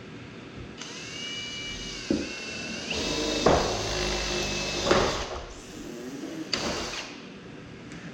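Power drill running, boring small pilot holes through the sheet-steel roof of a 1988 GMC C1500 pickup cab. The motor whine starts about a second in, gets louder for a couple of seconds as the bit cuts, stops, then comes back for a short second burst near the end.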